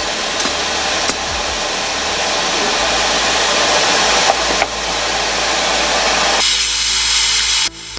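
Forge running with a steady rushing noise, a few light metal clinks over it. About six seconds in, a sharper, higher hiss takes over for about a second, then cuts off.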